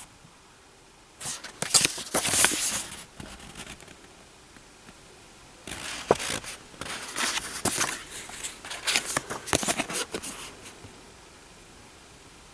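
Paper rustling and crinkling as a folded instruction leaflet is handled and turned, in two bouts: a short one about a second in and a longer one from about six to eleven seconds.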